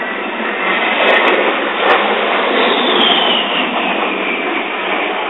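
Aircraft flying past, a loud steady rush of engine noise with a high whine that falls in pitch about halfway through as it goes by.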